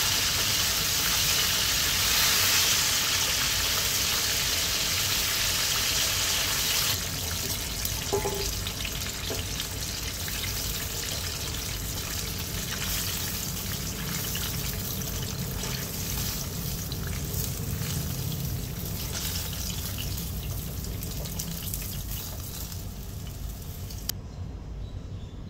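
Chicken wings deep-frying in hot oil, a steady dense sizzle that drops somewhat in level about seven seconds in as the wings come out of the oil. A brief metallic clink about eight seconds in, as the tongs and slotted skimmer work in the pan.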